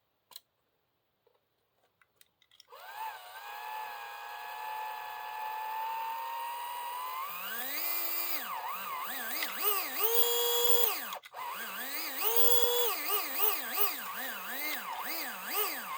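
Tyco 440x2 HO slot car's small electric motor whining, starting about three seconds in and holding a steady pitch, then revved up and down with a thumb controller, in quick short blips near the end. Its aftermarket bulkhead bushings are broken in, and the throttle response is quick.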